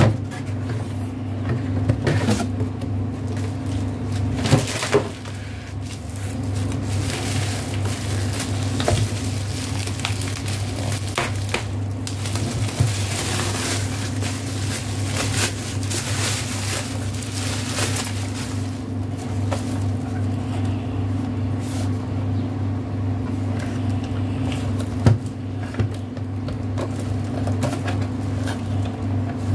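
Bubble-wrap packaging rustling and crinkling as it is handled and pulled off, with a few sharp knocks, over a steady low hum.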